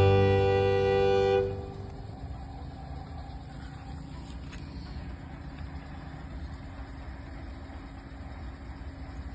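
A held horn-like tone that cuts off about a second and a half in, followed by a faint steady hum.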